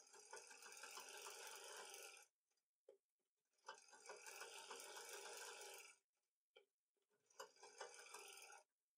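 A black domestic sewing machine stitching through fabric in three short runs, each a quiet, fast, even chatter, with small clicks in the pauses between them.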